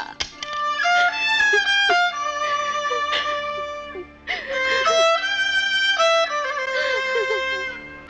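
Background film score: a violin melody of long held notes in two phrases, with a short pause about halfway.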